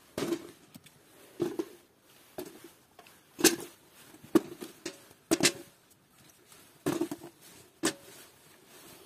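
Sweet peppers dropped one at a time into a galvanized metal bucket onto other peppers, giving about eight short knocks, roughly one a second.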